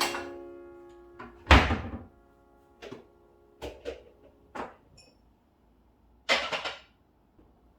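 A piano note fades out, then household objects are handled: a loud thud about a second and a half in, a few light clicks, and a short rustling scrape near the end.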